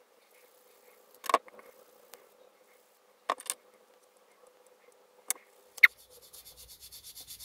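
A thin strip of hard pear wood being carved by hand with a craft knife gives a few sharp clicks spread over the first six seconds. Near the end comes about two seconds of quick, even scraping strokes, around seven a second.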